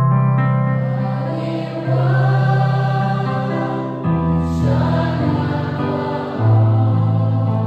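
A mixed church choir sings a slow hymn, accompanied by an electronic keyboard holding sustained chords whose bass note changes about every two seconds. The voices come in about a second in.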